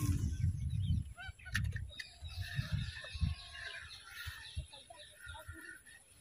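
Birds calling over and over in short, honking notes, with low rumbling thumps in the first second.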